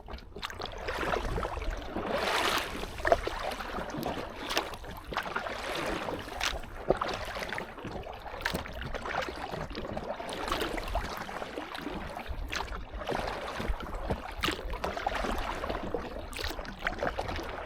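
Choppy lake water splashing and slapping against an inflatable kayak, with frequent irregular sharp splashes over a steady wash.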